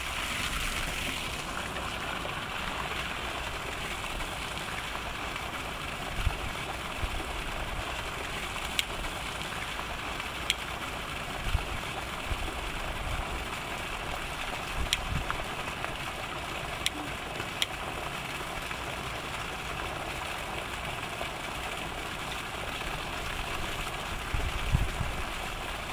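Steady outdoor hiss with irregular low gusts of wind buffeting the microphone. A few faint clicks come from metal tongs worked in the steel top of a small wood-burning rocket stove.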